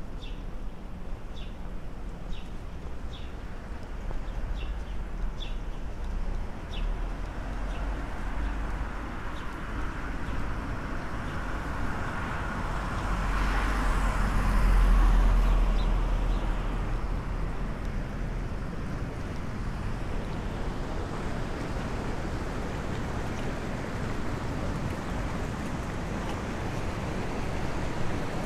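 A car approaching and passing by over a steady outdoor rush of traffic noise, loudest about halfway through and then fading. Short high chirps from a bird repeat in the first several seconds.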